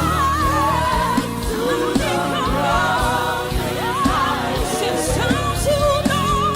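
Live gospel worship music: a lead singer with vibrato and backing voices singing over a band with bass and a regular drum beat.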